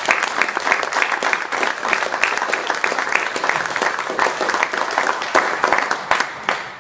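Audience applauding: dense clapping that thins and dies away near the end.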